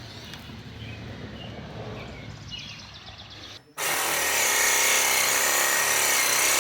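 Low clinks and rustle of hand work, then about three and a half seconds in a power tool starts and runs loud and steady while parts are taken off the truck.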